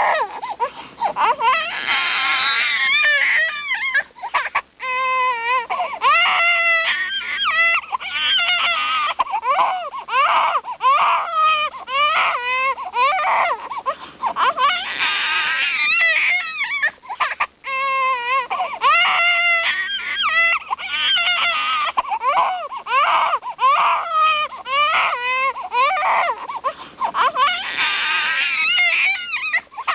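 An infant crying hard: a long run of high wailing cries broken by short catches of breath, with louder, strained screams about two seconds in, again about halfway through and near the end.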